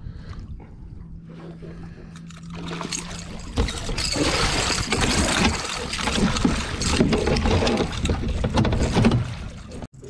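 A 21-pound catfish thrashing in a landing net at the water's surface, with loud, irregular splashing from about three and a half seconds in until just before the end. Before the splashing there is only a low steady hum.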